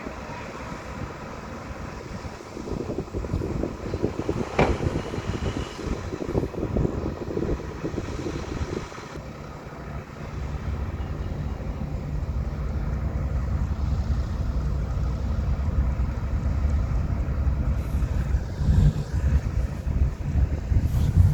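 Diesel engines of heavy earthmoving machinery working, with irregular clatter in the first half, then a steady low rumble that builds louder toward the end.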